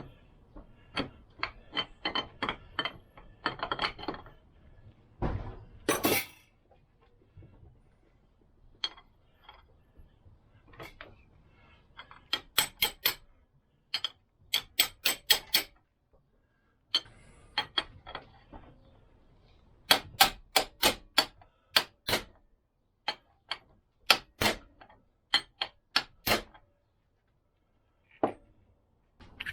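Hammer knocks driving a new bearing into the heated gearbox end plate of a Lambretta engine: runs of sharp, ringing metallic knocks with short pauses between. The bearing is a tight fit and has to be knocked home instead of dropping in.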